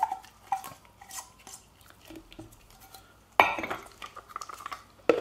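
Stainless steel mixing bowl knocked lightly a few times against a plastic food-processor container while dill is shaken out, each knock with a brief metallic ring. About three and a half seconds in, the bowl is set down with a louder clatter.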